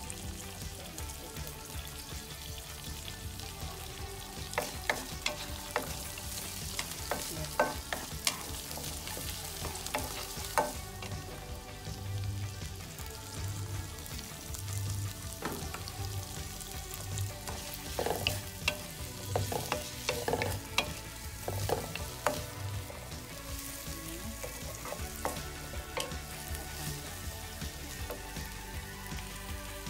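Shallots and onions sizzling in hot oil in a nonstick wok while a wooden spatula stirs them, with frequent sharp knocks and scrapes of the spatula against the pan.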